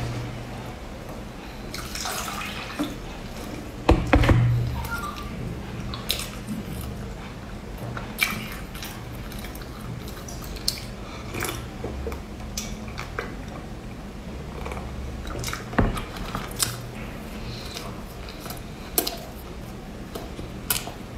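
Close-up eating and drinking sounds: sipping and slurping a thick liquid from a ceramic bowl, a spoon clicking against the bowl, and chewing pastry, as small scattered clicks and wet mouth noises. One louder sound comes about four seconds in.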